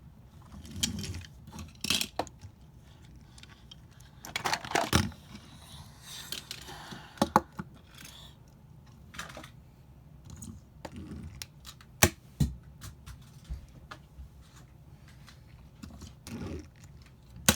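Scattered clicks and small clattering knocks of hard objects, irregular, with sharper knocks about 2, 5, 7 and 12 seconds in and one more near the end.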